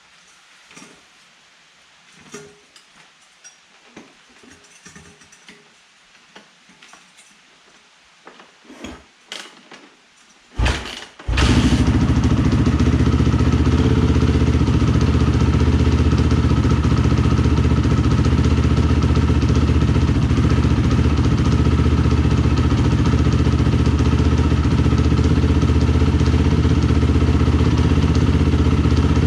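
Faint clicks and knocks, then the 2001 Yamaha YZ426F's single-cylinder four-stroke engine fires with a short burst about ten seconds in and settles into steady running at an even idle.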